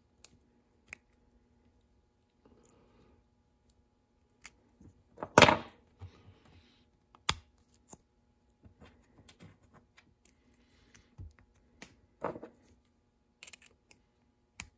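Light metal clicks and taps of needle-nose pliers and a small steel E-clip being worked onto a bicycle derailleur's pivot bolt, with one much louder sharp snap a little over five seconds in.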